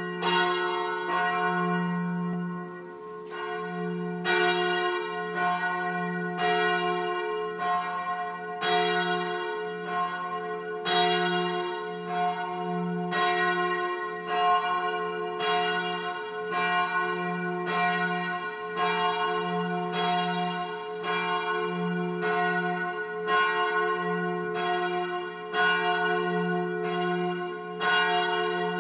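Full peal of the four swinging bronze church bells cast by Rüetschi of Aarau in 1904, tuned to an F major chord (F° A° c' f'). Their strikes overlap in a rolling pattern, about one or two a second, over a steady deep hum.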